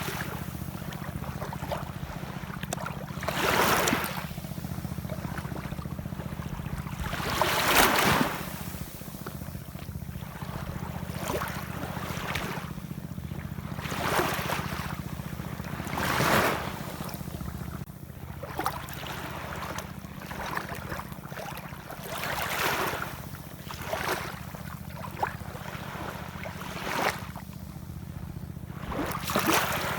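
Ocean waves washing in, a rushing surge every few seconds over a steady low rumble, the loudest swell about eight seconds in.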